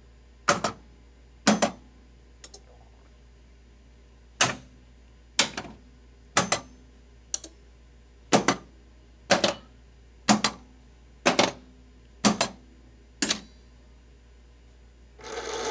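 Williams Whirlwind pinball machine in solenoid test mode, firing its coils one after another: a sharp clack about once a second, two of them much fainter. Near the end a rushing whir of about a second as the playfield fan runs.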